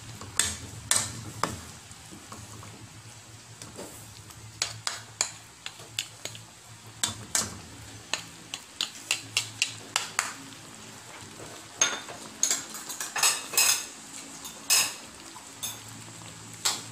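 Metal fork and wooden spatula knocking and scraping against a pan as a shrimp and vegetable coconut-milk stew is stirred, in irregular clicks that come thicker in the second half, over a low simmer.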